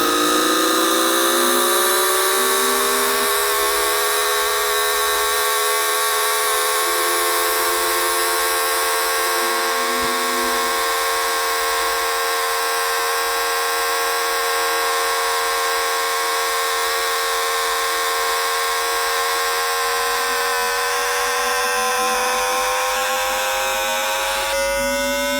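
Electromagnetic sound of a Times Electric tPower-TN28 VVVF traction inverter and its motors on a Shenzhen Metro Line 14 train, picked up by an inductor rather than a microphone. It is a set of pure electronic tones that rise in pitch at first, then hold almost level with a slow climb, as the train accelerates. Near the end the tone pattern switches abruptly and the tones begin climbing again.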